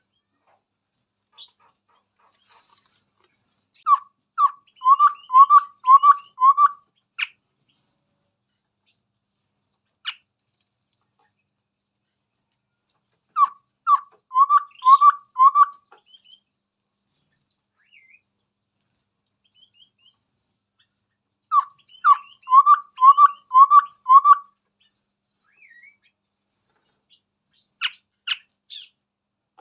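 Chestnut-rumped babbler singing: three phrases, each a quick run of about six short, low, clear notes, with higher twittering notes over them. There are a few scattered calls between the phrases.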